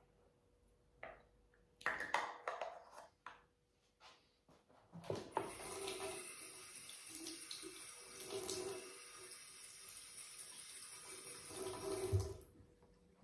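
A few light clicks and knocks of small things being handled, then a bathroom basin tap running in a steady hiss as hands are rinsed under it. The tap is shut off near the end.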